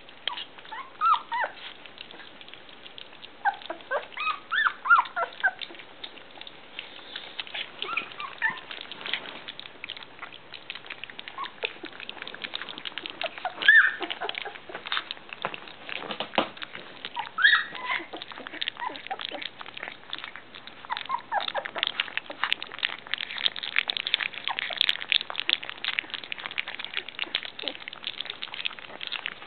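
Three-week-old rough collie puppies whimpering in short, high squeaks while eating soft food from a bowl. Through it runs a steady patter of small wet smacking and lapping clicks, busiest in the second half.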